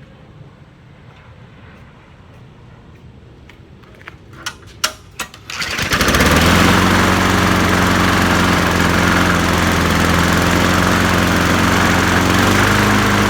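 A 1999 Weedeater push mower's Briggs & Stratton Classic 4.5 HP engine starts after a few sharp clicks, catching about six seconds in, then runs steadily and loud, its note shifting slightly near the end. To the owner it sounds like the blade is out of balance.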